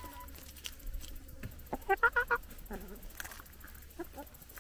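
Hens clucking while they feed, with a quick run of about five short clucks about two seconds in and a lower call just after.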